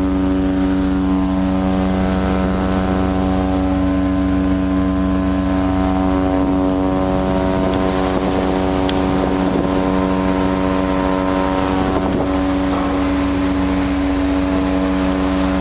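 A loud, steady low drone at one constant pitch on board a large bulk carrier, with wind noise over it.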